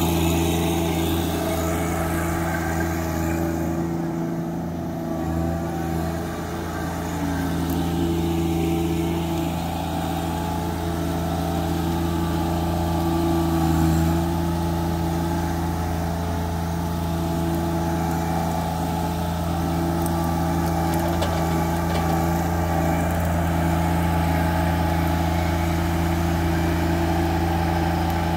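John Deere 1025R compact tractor's three-cylinder diesel engine running steadily as the tractor drives over brush, easing off briefly a few seconds in and swelling slightly about halfway through.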